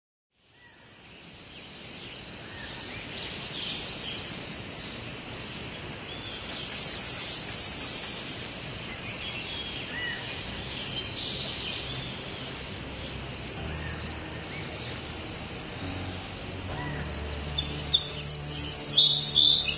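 Forest ambience fading in from silence: a steady chirring of insects such as crickets, with short bird chirps above it. In the last few seconds a low steady hum comes in and the bird chirps grow louder.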